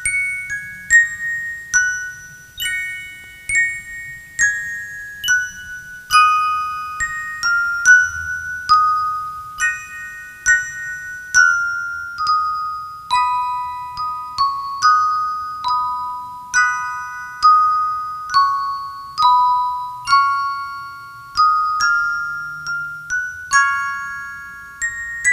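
Background music: a slow melody of bell-like notes, each struck and ringing out as it fades, at about two notes a second.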